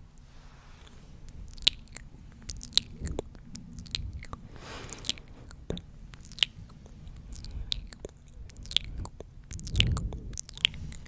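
Close-microphone ASMR mouth sounds: irregular wet, sticky clicks and smacks, with a short breathy hiss a little before the middle.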